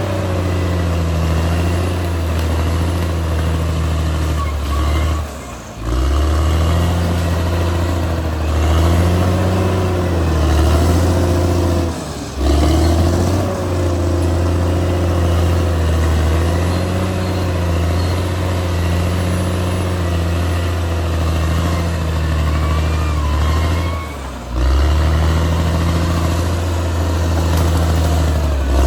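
Caterpillar D6R XL bulldozer's diesel engine running steadily, its pitch rising and falling slightly. It is broken by three brief sudden drops.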